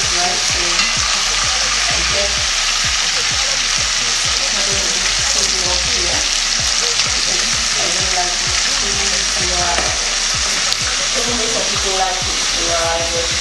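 Fish pieces deep-frying in hot oil in an enamel pot: a steady sizzle with constant crackling and popping, while a metal spoon stirs and turns the pieces.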